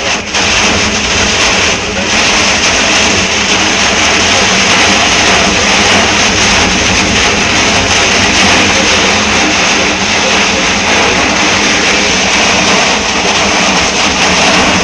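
Storm: a loud, steady rushing noise that holds without a break.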